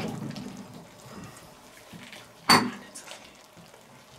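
Kitchen handling sounds: soft knocks of glassware being set down, then one sharp glass clink with a brief high ring about two and a half seconds in, as a glass jar of stock is picked up.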